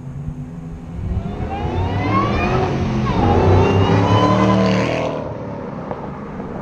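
Straight-piped supercharged V8 of a 2008 Roush Blackjack Mustang, mufflers deleted with the stock catalytic converters kept, accelerating loudly. Its pitch climbs from about a second in, dips once near three seconds, then drops back to a low rumble after about five seconds.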